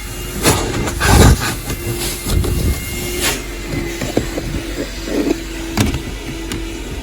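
Coin-operated petrol-station car vacuum running with a steady hum while its hose nozzle sucks at the car's interior, with knocks and scrapes as the nozzle bumps against the car, the loudest about a second in.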